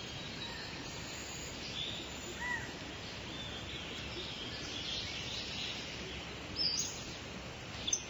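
Scattered bird chirps over a steady background hiss of outdoor ambience, with a few calls about two and a half seconds in and a louder cluster of chirps near the end.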